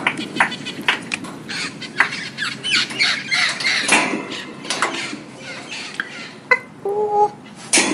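Birds calling with many short, harsh squawks in quick, overlapping succession. About seven seconds in comes a brief held call.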